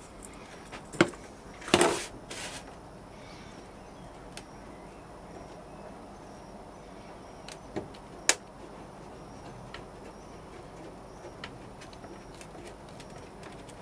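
Handling sounds from sand casting: a metal hand sieve knocks sharply a few times in the first couple of seconds as it is emptied of casting sand over a metal tray, then quiet crumbling and scraping as the sand is pressed down by hand into a small flask, with two more short knocks around eight seconds in.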